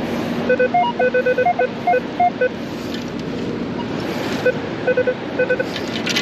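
Metal detector sounding rapid short target beeps, mostly one low tone with some higher-pitched ones, over a buried spill of coins. About four seconds in and again near the end, sand hisses through a perforated stainless-steel sand scoop as it is shaken out.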